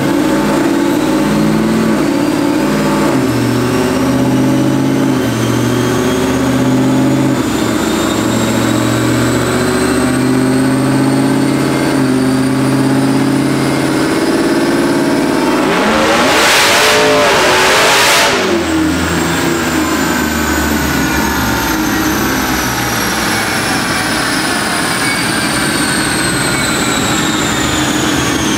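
Supercharged LT5 V8 pickup running on a chassis dyno during a fifth-gear pull. A whine climbs steadily for about fifteen seconds, a short, loudest full-throttle burst comes about two-thirds of the way through, and then the whine falls away as the truck coasts down on the rollers.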